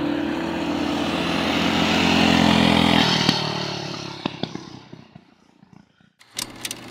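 Mini bikes' small engines running at high revs on a pass, loud for the first three seconds and then fading away, with a few sharp clicks near the end.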